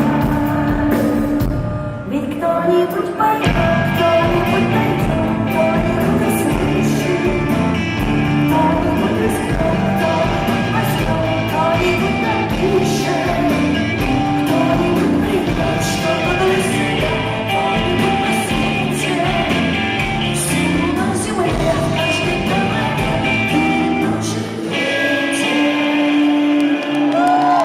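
A rock band playing live with a singer, heard in a large hall. About three-quarters of the way through the bass drops out and the music thins toward the song's end.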